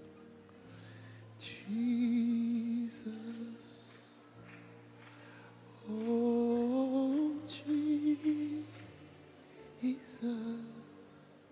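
Slow worship music: a soft keyboard pad holding sustained chords, with a voice singing wordless phrases over it, one starting about a second and a half in and a longer, climbing one about six seconds in.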